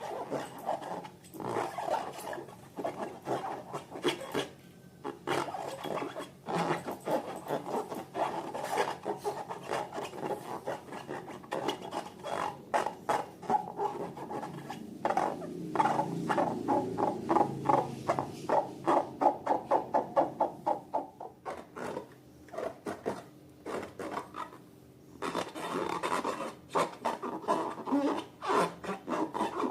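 Slime being worked by hand, with rapid sticky clicks and crackles as it is squeezed and stretched. In the middle it turns into a fast, even run of pops.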